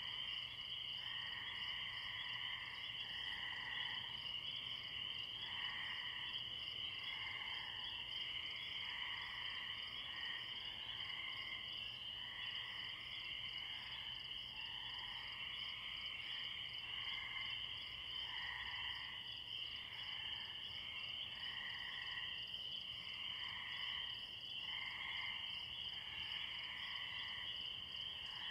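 Night chorus of spring peeper frogs and tree crickets: a steady high trilling with calls repeating about once a second beneath it.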